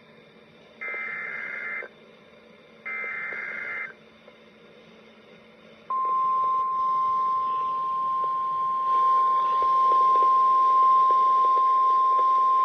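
NOAA Weather Radio emergency alert heard through a radio receiver. It starts with two bursts of the SAME digital header, a raspy data warble lasting about a second each, a second apart. About six seconds in, the steady 1050 Hz warning alarm tone comes on suddenly and holds. The tone is louder than the bursts, and it signals that a warning such as this severe thunderstorm warning is about to be read.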